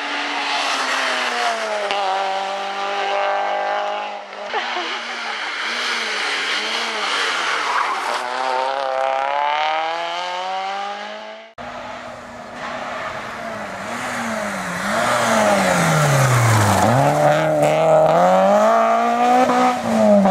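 Peugeot 106 S16 rally car's four-cylinder engine revving hard as it passes, the note repeatedly dropping and climbing through lifts, downshifts and gear changes. Two separate passes, the second starting about halfway through and louder, with a deep dip in revs before it pulls away again.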